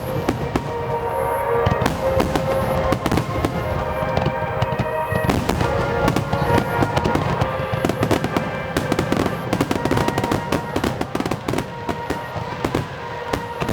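Festival fireworks display: a dense barrage of aerial shell bursts, many sharp bangs and crackles close together, with music playing underneath.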